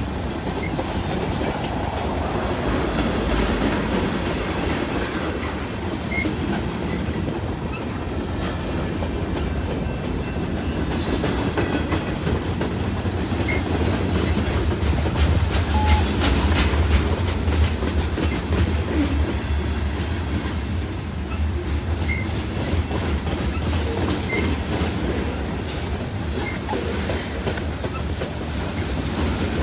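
Freight cars of a CN freight train rolling past: a steady rumble of steel wheels on rail, heaviest about halfway through, with a few short faint high squeaks from the wheels now and then.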